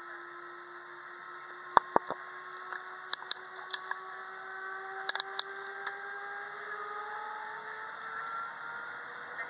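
Airbus A320's IAE V2500 engines heard from inside the cabin while taxiing, a steady whine slowly rising in pitch. Several sharp clicks and knocks stand out, the loudest about two seconds in and a quick cluster about five seconds in.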